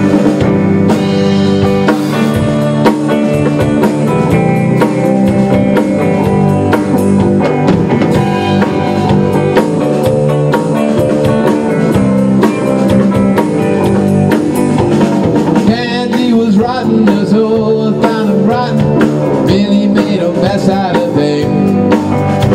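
A rock band playing live: electric guitar, bass guitar and a drum kit, with steady drum hits throughout.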